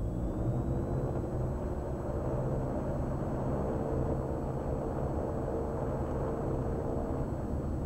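Twin Austro AE300 turbodiesel engines of a Diamond DA42 NG running steadily on the ground, warming up to bring the gearbox temperature into the green before the run-up.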